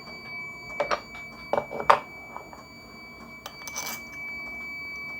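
Light metal-on-metal clinks and knocks, several in the first two seconds, then a short scraping slide, as steel machine-shop parts are handled and fitted together. A steady high-pitched whine runs underneath.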